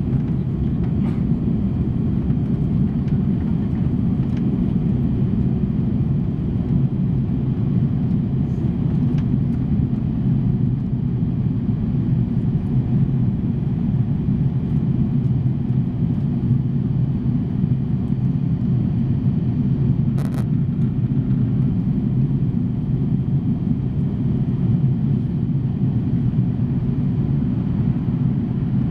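Inside the cabin of an Airbus A340-600 climbing out after takeoff: a steady, deep rumble of its four Rolls-Royce Trent 500 engines and the rushing airflow, heard from a window seat over the wing. A brief click about twenty seconds in.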